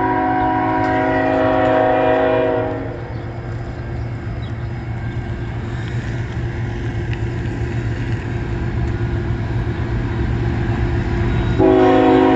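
Air horn of an approaching CN freight locomotive sounding a long blast that cuts off about three seconds in, then sounds again near the end. A steady low train rumble runs underneath and grows slowly louder as the locomotive nears.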